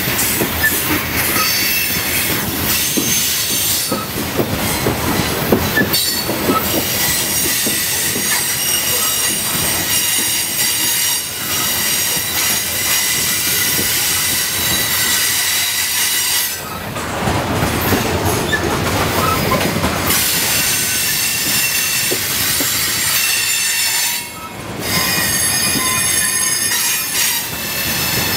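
Coal cars of a CSX unit coal train rolling past on a curve, their wheels squealing against the rail in several high, steady tones over the rumble and clatter of the wheels. The squeal eases briefly twice, about two-thirds of the way through and again near the end.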